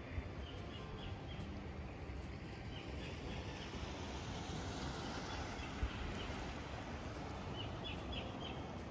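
Gentle surf washing on the beach, a steady hiss that swells a little midway, with small birds chirping in short bursts several times.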